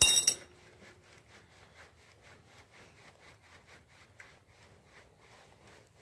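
A threaded steel pin, packed behind with grease and wrapped in Teflon tape, is screwed by hand into the clutch hub's threaded bore, making faint rubbing and small ticks. It is tightened to build grease pressure behind the clutch. A brief loud scrape comes right at the start.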